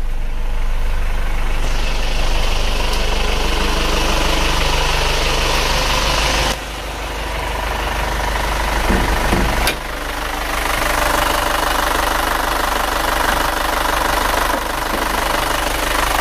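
Isuzu Panther pickup's freshly overhauled diesel engine idling with a steady clatter. There is a sharp knock about ten seconds in.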